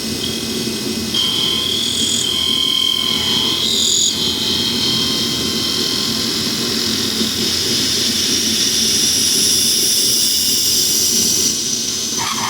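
Milling machine running as it mills a part, a steady mechanical noise with a high whine that shifts in pitch as the cutter works.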